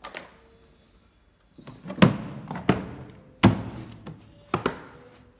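Hard plastic Makita carrying case for a cordless circular saw being closed: a light click at the start, then four or five hollow plastic knocks and clacks between about two and five seconds in as the lid comes down and is pressed shut.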